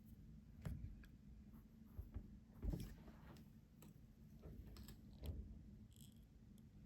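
Faint clicks and light handling taps from a slip-joint pocket knife being turned over in the hands, about half a dozen scattered strokes with the strongest about three seconds in.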